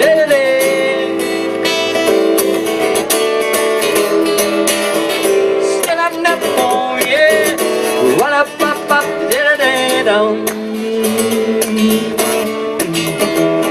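Live song accompaniment on a strummed acoustic guitar, in an instrumental break between sung verses.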